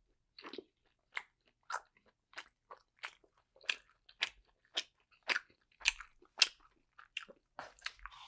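Close-miked mouth chewing a steamed vegetarian dumpling, wet crisp smacks about twice a second.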